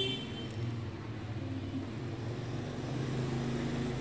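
A steady low mechanical rumble, like a motor or traffic.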